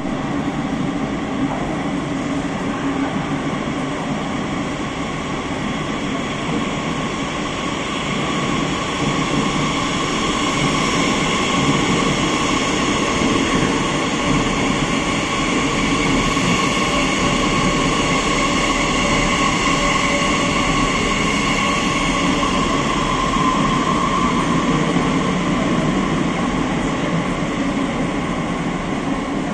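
Madrid Metro 8000-series train running through an underground station without stopping: steady rumble of wheels on rail with a high whine over it, a little louder in the middle as the cars pass close.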